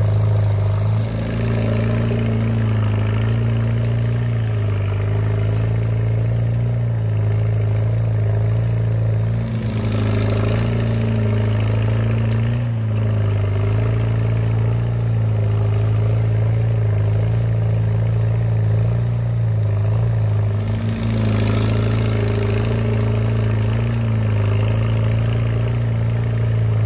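Farmall Super C tractor's engine running steadily under load as it pulls a one-bottom plow, holding an even pitch and level.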